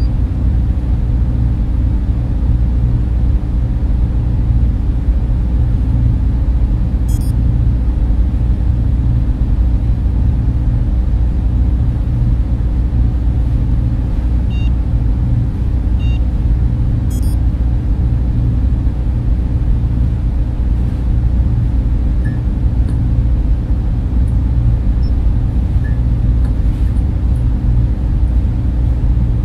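Sci-fi spaceship-interior ambience: a steady, deep machinery hum, with a few faint electronic beeps and chirps scattered through it.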